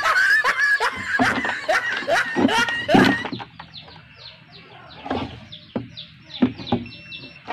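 Chickens clucking and squawking for about the first three seconds, then many short, high, falling peeps until the end.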